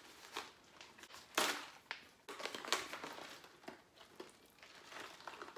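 Plastic stand-up pouch of granola crinkling as it is pulled open and handled, in a run of sharp crackles, the loudest about a second and a half in, then fingers reaching into the granola.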